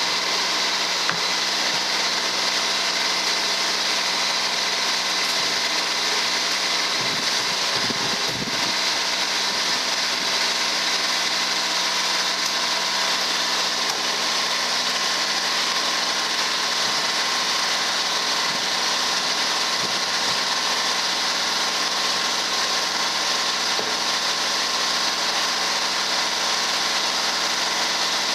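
The three-cylinder diesel engine of a 1987 Ford LGT14D garden tractor idling steadily, freshly started cold after months of sitting.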